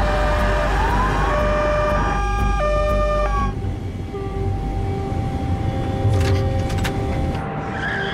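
Several emergency-vehicle sirens sound at once over a low vehicle rumble, some alternating between two tones and one wailing up and down. They cut off about three and a half seconds in, leaving a steady held drone.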